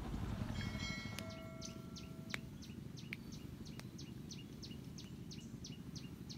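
A bird calling in a rapid, regular series of short downward-sliding chirps, about three a second, over a low steady rumble; a faint held tone sounds for about two seconds near the start.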